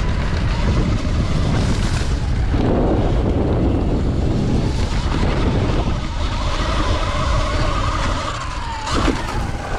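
Electric dirt bike being ridden over dirt, with heavy wind rumble on the microphone and the motor's whine rising and falling in pitch with speed. A sharp knock sounds about nine seconds in.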